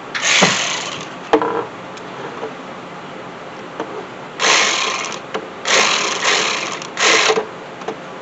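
Ratchet driving in the MAP sensor's mounting bolts in short buzzing runs: one near the start, a brief one a second later, then three close together in the second half.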